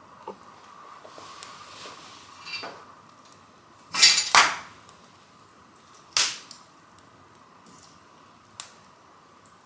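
Wood fire in a fireplace crackling, with a few sharp pops; the loudest come about four seconds in, as two close together, and another about six seconds in.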